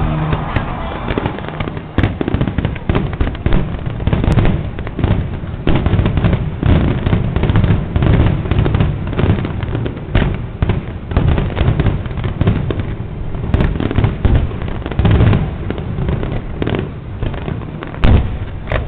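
Fireworks display: a dense, continuous barrage of bangs and crackling from shells bursting overhead, with a few louder booms standing out.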